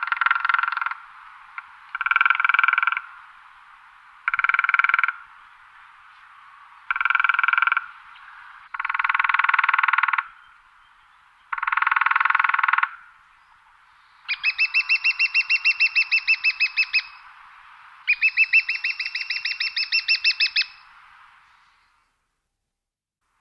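Woodpecker drumming on wood, rapid strike rolls about a second long repeating every couple of seconds. Then come two longer, higher-pitched rolls of about three seconds each in the second half.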